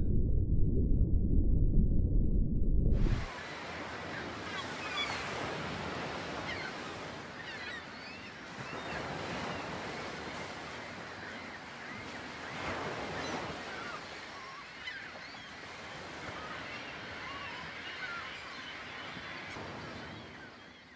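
Ocean surf with seabirds calling over it: many short, high cries. A loud low rumble fills the first three seconds, then cuts off.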